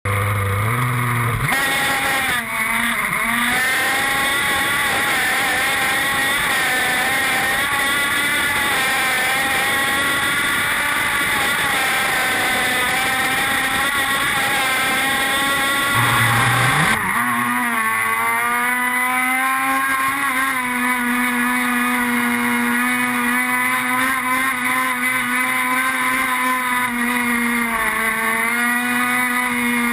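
Small two-stroke petrol engine of a radio-controlled F1 outboard racing boat running flat out, heard close up from on board with the hiss of spray. Its pitch wavers with the throttle and dips briefly about two seconds in. About halfway through it changes to another run with a steadier note.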